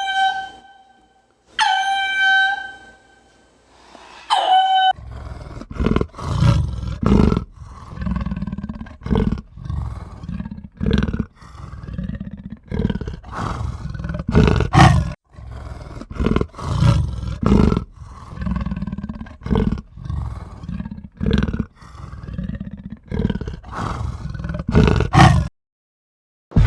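Three short, high-pitched calls, then from about five seconds in a long series of loud, deep roaring grunts from a large animal, about one a second.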